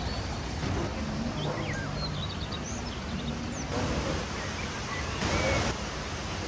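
Steady background hiss with scattered short bird chirps, and a brief louder rush of noise about five seconds in.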